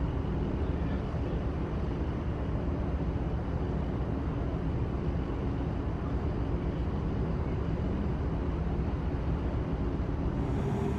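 Steady low mechanical rumble with a faint hum running through it; near the end a steadier hum comes in a little stronger.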